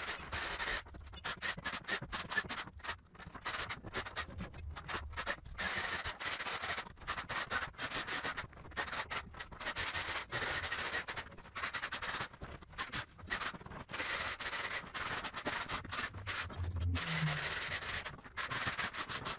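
Rough scraping and rasping in many short, irregular strokes with brief pauses between them.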